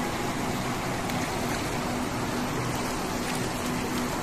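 Muddy floodwater rushing down a street, heard as a steady, even rush of water with no breaks.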